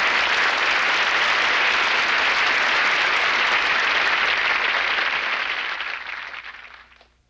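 Studio audience applauding steadily, then fading out over the last couple of seconds.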